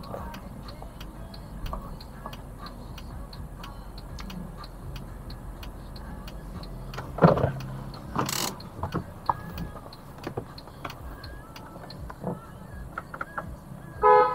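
Mercedes-Benz C200 running low and slow as it pulls in and parks, with steady fast ticking throughout. A sharp knock about seven seconds in, a short hissing burst just after, and a brief pitched chirp near the end.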